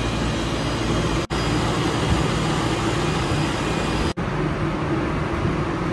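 Electric machine polisher running steadily with a foam pad, buffing a car's painted bonnet with fine finishing compound. Its steady hum breaks off for an instant twice.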